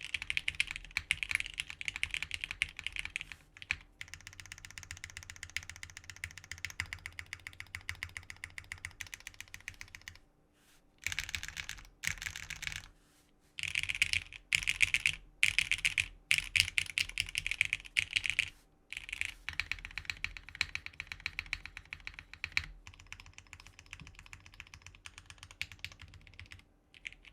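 Fast typing on a plateless Sagrada 60% custom mechanical keyboard with lubed Cherry MX Black switches and GMK Noel keycaps. It is a dense run of keystroke clacks, with a couple of short pauses and louder runs of typing in the middle.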